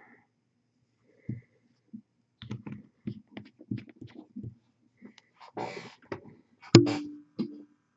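Irregular small clicks and taps of painting tools being handled on the desk, with a short rustle and then one sharp knock that rings briefly near the end.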